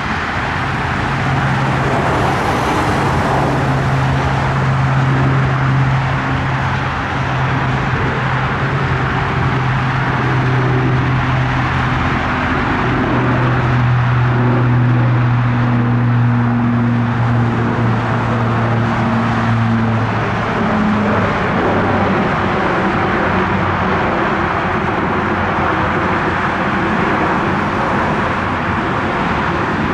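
Royal Air Force Airbus A400M Atlas climbing out after takeoff: the drone of its four TP400-D6 turboprops, a strong, steady low propeller hum over a rushing noise. About two-thirds of the way through, the hum drops slightly in pitch.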